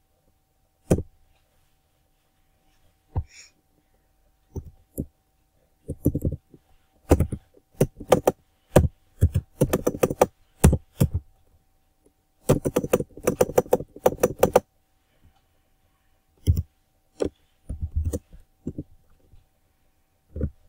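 Typing on a computer keyboard: irregular keystrokes in quick flurries separated by short pauses. A faint steady hum runs underneath.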